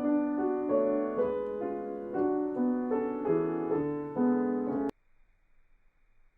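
Piano playing a series of held chords, changing about twice a second, that cuts off abruptly with a click about five seconds in, leaving only faint hiss.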